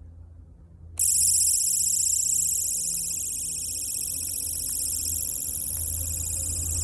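Dollar-store personal safety alarm switching on suddenly about a second in and sounding continuously: a shrill, high-pitched electronic tone pulsing rapidly. The owner finds it far quieter than the 100 decibels its packaging claims.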